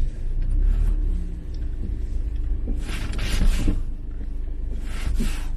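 Car brakes clunking and scraping as the pedal is pressed, in two noisy bursts, the louder about three seconds in and a shorter one near the end, over the low rumble of the moving car. The service staff put the noise down to brake pads wet from a car wash, which they say will stop once the pads dry.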